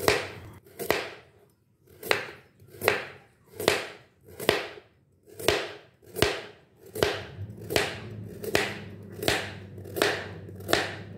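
Kitchen knife slicing a raw carrot into rounds on a cutting board: a crunching cut about once every three-quarters of a second, each ending in a short tap of the blade on the board.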